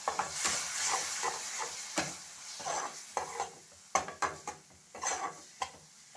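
Onion and spice masala sizzling in hot oil in a nonstick kadai after a splash of water is added to the dry spices, while a spatula stirs and scrapes the pan in a run of quick strokes. The sizzle is strongest in the first second or so and then dies down.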